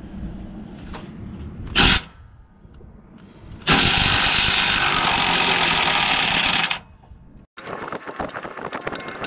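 Ryobi cordless impact wrench hammering for about three seconds, after a short blip about two seconds in, as it loosens a truck drive-axle torque rod bolt. A rapid, irregular clicking clatter follows near the end.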